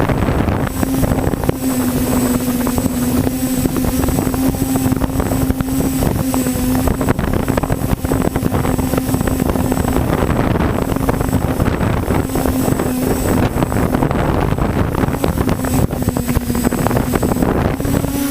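TBS Discovery quadcopter's brushless motors and propellers humming at one steady pitch in flight, under heavy wind buffeting on the microphone.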